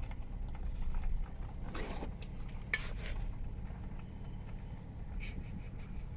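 Low steady rumble with light clinks and rattles of small hard objects now and then, the clearest about two and three seconds in and again near the end.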